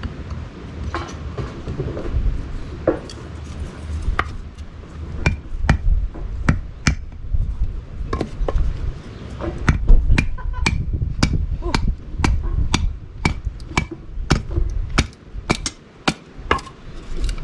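Repeated sharp knocks of a newly bought blade striking and chopping into firewood as its sharpness is tried out. The knocks come sparsely for the first few seconds, then about one or two a second.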